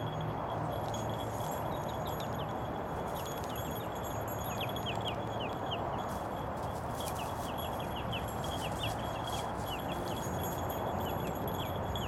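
Metal tags on a running dog's collar or harness jingling in quick bunches of high tinkles, over a steady hum of road traffic.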